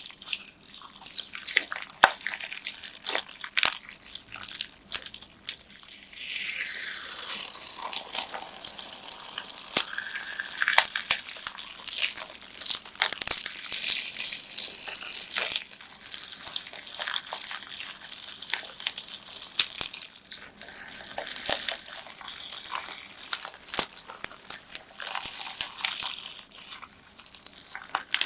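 Hands squishing, pressing and stretching slime packed with plastic beads, giving a dense run of wet crackling and clicking.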